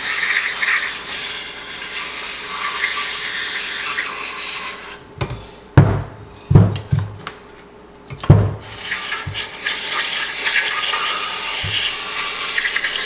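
Aerosol parts cleaner sprayed through its straw into the power-valve housing of a Yamaha YZ250 two-stroke cylinder: a steady hiss. The hiss stops about five seconds in for several dull knocks as the aluminium cylinder is turned over on the bench, then the spraying resumes.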